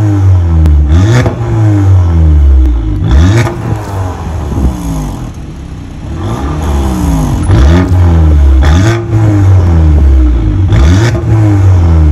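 Audi A5's Stage 1 tuned 2.0-litre turbocharged four-cylinder, revved several times in place through a modified exhaust with its vacuum valve open: repeated rises and falls in pitch, each dropping back to idle.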